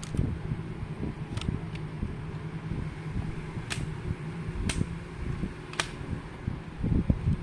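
Sharp plastic clicks from a Lego Glock 18 model being worked by hand, about six of them at irregular spacing. They sit over a steady low hum and the rumble of handling.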